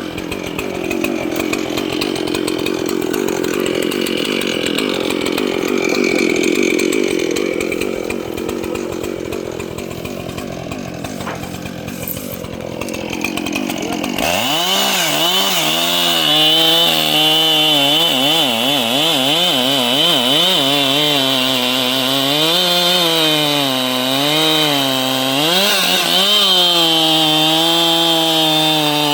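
Two-stroke chainsaw running in a cut. For about the first half it is a rough, noisy sound; then a clear engine note takes over, its pitch wavering up and down as the saw loads and recovers.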